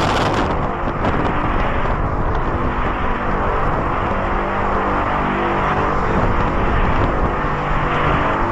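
The so-called mysterious trumpet-like 'strange sounds' reported around the world: a loud, steady low drone with held tones under a constant rush of noise, starting abruptly.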